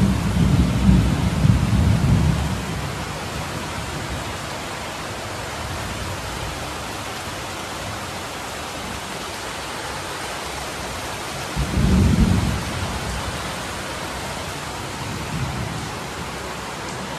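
Heavy rain falling steadily, a constant hiss, with two low rumbles: one lasting about two seconds at the start, and a shorter one about twelve seconds in.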